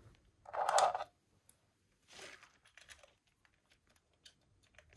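Hands fitting bolts and parts onto the water pump housing of a Citroën BX engine: a brief louder rustle about half a second in, then scattered light metal clicks and taps.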